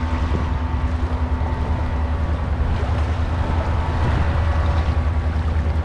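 Wind buffeting the body-worn action camera's microphone as a steady low rumble, over the rush of a shallow river riffle.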